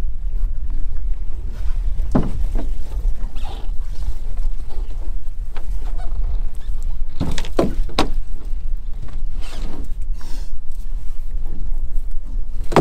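Steady low rumble of wind and choppy water around a small open boat, with sharp knocks as a lobster pot is hauled by hand over the gunwale and set down on deck: one about two seconds in and a cluster around seven to eight seconds in.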